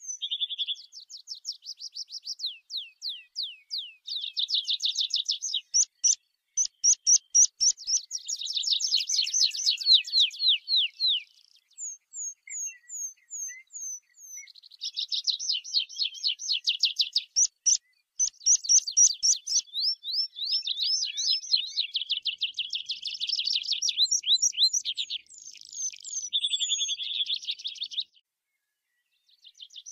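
Tree pipit (Anthus trivialis) singing: phrase after phrase of fast repeated high notes and trills, some with thin falling notes, separated by short pauses.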